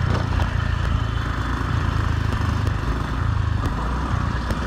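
Motor scooter engine running steadily while riding, with an even hiss of wind and road noise.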